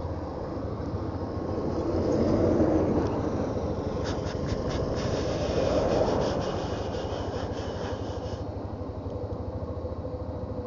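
A motorbike engine running as it is ridden, with road and wind noise rising and falling, loudest about two and six seconds in.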